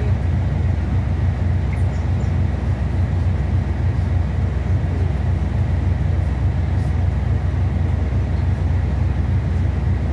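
Rear-mounted diesel engine of a Scania K320C bus idling steadily, a low even drone heard from inside the passenger cabin while the bus stands still.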